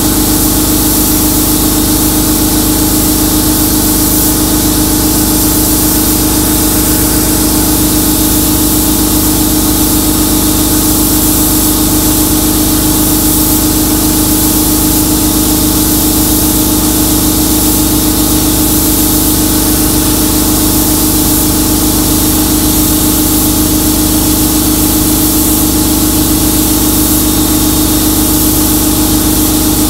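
Glass-bead blast cabinet in use: loud, steady hiss of the blast gun spraying glass beads against a steel speaker cabinet, stripping paint, over a steady machine hum.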